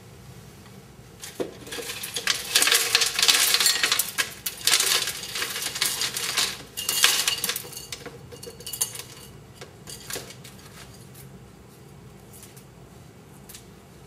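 Ice cubes poured from a bowl clattering into a blender jar: a dense rattle of clinks for several seconds, then scattered single clinks as the last pieces fall.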